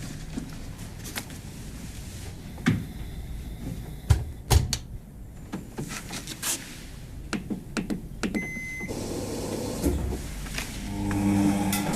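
Domestic washing machine being loaded and set: scattered knocks and clicks of handling and the door, a short electronic beep about eight and a half seconds in, then the machine starts with a low steady hum.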